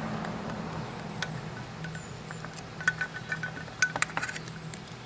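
Light metallic clicks and clinks of outboard tiller-handle and throttle-cable parts being handled and fitted, scattered and thickest in the second half, over a faint steady low hum.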